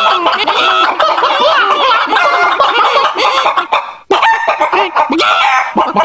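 Several hens clucking over one another in a dense, continuous chatter, breaking off briefly about four seconds in and then starting again.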